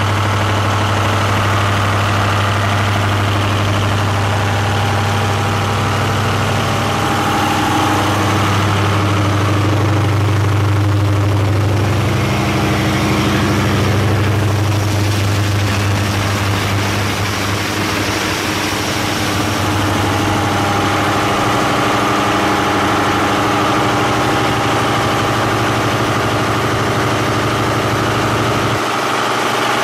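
MTU diesel generator set running during a load test: a loud, steady low engine drone whose tone shifts slightly around the middle.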